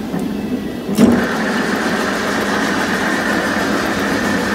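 A BTD dynamic crankshaft balancing machine is switched on with a clunk about a second in, then spins the crankshaft and front pulley assembly with a steady whirring. This is a test spin to read how far the pulley is still out of balance after a balancing hole was drilled in it.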